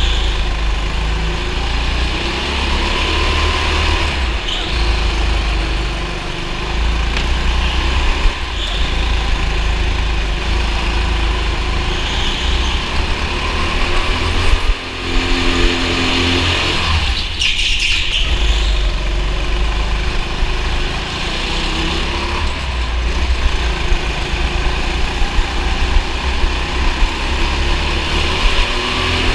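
Racing go-kart engine heard from an onboard camera, running hard with its pitch rising and falling as the throttle comes on and off. A heavy low rumble sits under it, and a few brief high squeals come in along the way, the clearest a little past halfway.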